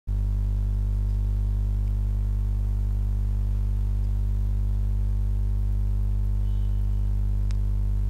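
Steady electrical mains hum, a low buzz at about 50 Hz with a stack of overtones.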